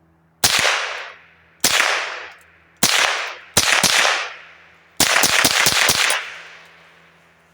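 Savage Model 62 semi-automatic .22 LR rifle firing: four shots about a second apart, then a quick string of several shots near the end. Each shot has a sharp crack followed by a fading echo.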